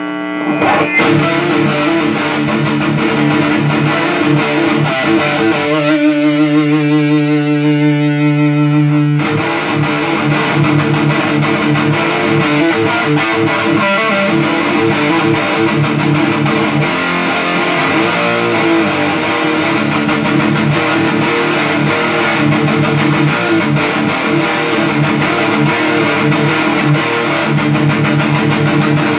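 Electric guitar riffing through a fuzz pedal into an Orange amplifier. About six seconds in, a chord is held and rings with a wavering pitch for about three seconds, then the riffing starts again.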